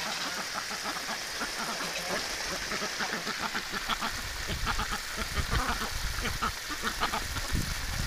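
Flock of domestic ducks quacking in many short, overlapping calls. A low rumbling noise builds underneath from about halfway through.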